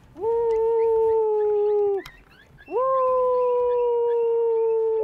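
Predator call sounding two long, steady, howl-like notes, each sagging slightly in pitch, with a short break between them. The howl is blown to stop an approaching coyote and hold it still for the shot.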